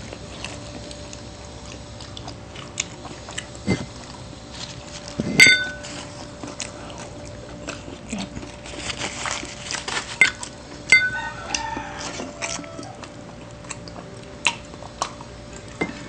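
Close-up eating sounds: chewing and biting of rice and tocino eaten by hand, with scattered small clicks. A ringing clink of a dish or glass about five seconds in is the loudest sound, and two lighter clinks follow about five seconds later.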